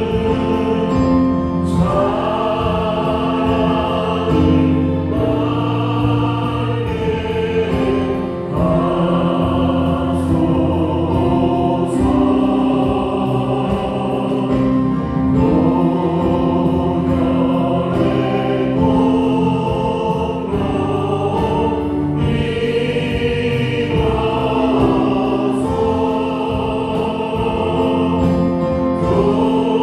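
A church praise band plays a gospel worship song while a group of voices sings. A Yamaha Montage 8 keyboard, bass guitar and drums accompany the singers, with steady drum strikes throughout.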